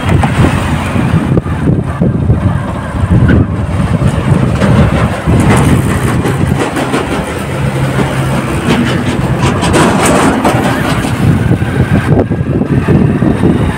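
Vehicle being driven along a road, heard from on board: steady engine drone with road and wind noise rumbling loudly on the microphone.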